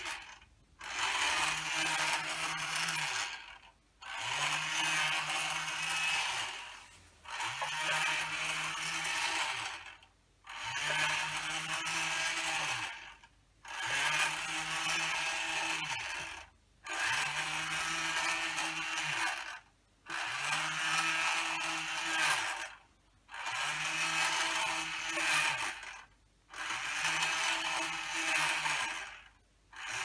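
The motor of a motion-sensing spinning owl bird scarer turning the owl's head, a whirring in even runs of about two and a half seconds. Each run is cut off by a brief pause, about ten times.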